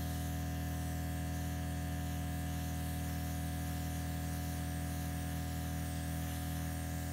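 Airbrush compressor running with a steady hum, and the airbrush hissing as it sprays a base coat of paint.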